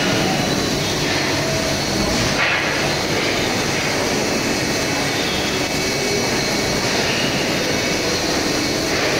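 Steady drone and hiss of running workshop machinery, even in level throughout, with a brief brighter hiss about two and a half seconds in.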